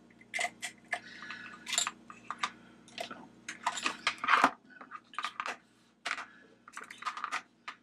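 Snap-ring pliers and a snap ring clicking and clinking as the ring is worked into its groove in a flashlight head, then metal pliers clattering as they are set down and picked up. The clicks are sharp and irregular.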